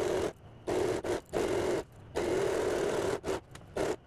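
Electric domestic sewing machine stitching in short bursts, its motor and needle starting and stopping several times as the fabric is guided round a curved edge.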